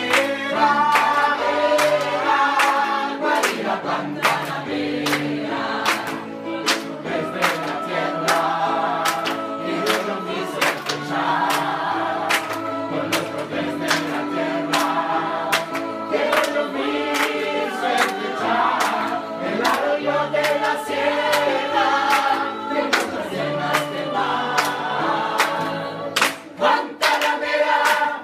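Mixed choir singing with electric keyboard accompaniment and hands clapping along in time, the claps getting louder near the end.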